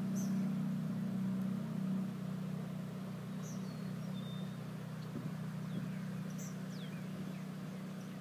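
A steady low drone, loudest in the first couple of seconds, with a few short high bird chirps and quick falling whistles over it.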